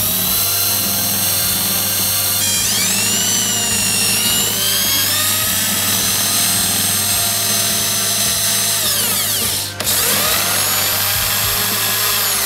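Cordless drill motor whining as it spins a meat grinder plate against sandpaper, grinding it flat, its pitch shifting with the load. About ten seconds in, the drill cuts out for a moment and then speeds back up.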